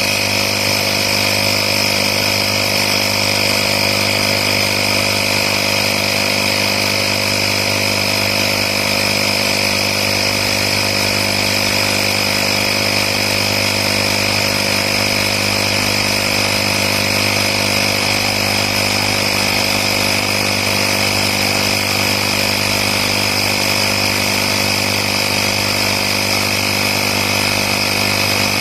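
AstroAI 12 V portable air compressor (tyre inflator) running steadily: a constant mechanical hum with a steady high-pitched tone over it.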